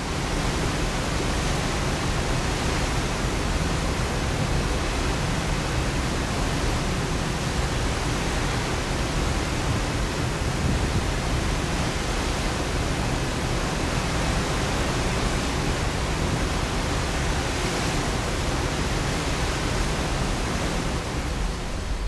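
Steady rushing noise of the open sea heard from a cruise ship, even and unbroken throughout.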